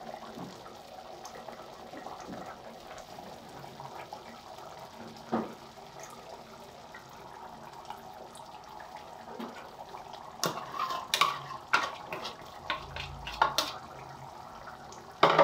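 A pot of dal and pumpkin curry simmering on a gas stove with a low, steady bubbling while oil is poured into it. From about ten seconds in, a metal ladle stirs the curry and clicks and knocks against the pot several times.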